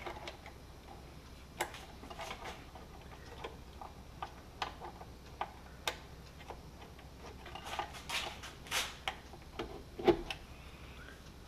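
Irregular small clicks and taps of hands handling parts inside a panel housing, with a few quicker clicks about eight seconds in and a louder knock near the end.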